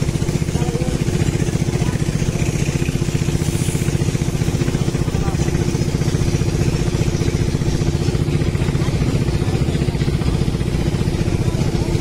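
A small boat engine running steadily at an even speed.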